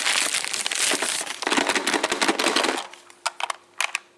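Crinkling and crackling of toy packaging being handled, dense for nearly three seconds, then a few scattered clicks and taps.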